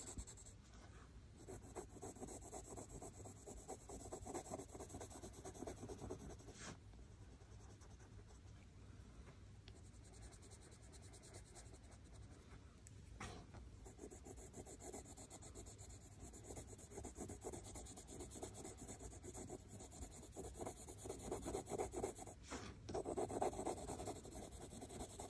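Yellow ochre Prismacolor coloured pencil scratching faintly across cartridge paper in loose, quick shading strokes, with a few sharper ticks along the way.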